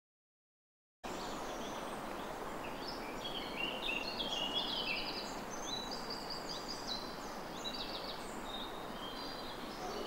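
Birds singing in woodland: a run of rapid trilled phrases and high chirps over a steady background hiss, starting about a second in and thinning out near the end.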